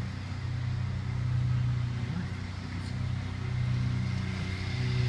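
A car engine running steadily: a low, even hum with slow swells in loudness.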